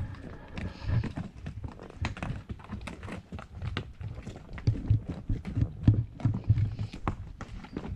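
Horse walking on a trail, its hooves clopping in an uneven rhythm of sharp knocks and dull thuds.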